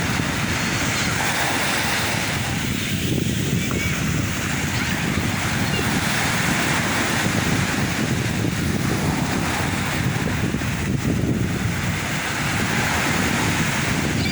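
Sea waves breaking and washing on the shore, swelling and easing about every five to six seconds, with wind rumbling on the microphone.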